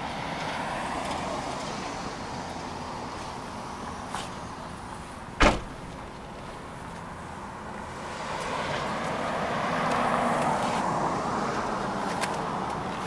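One loud slam about five and a half seconds in, the rear liftgate of a 2008 Chevrolet Uplander minivan being shut, over steady street noise that swells for a few seconds near the end.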